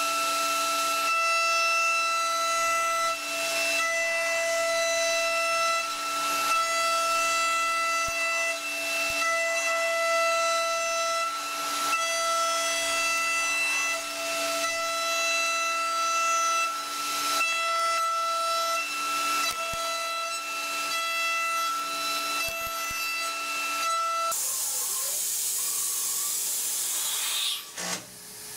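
A machine's steady, high-pitched whine over a hiss, which stops a few seconds before the end and gives way to a sharper, brighter hiss.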